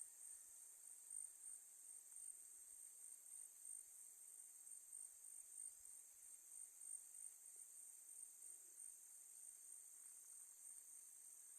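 Crickets trilling faintly in a steady, high, finely pulsing chorus.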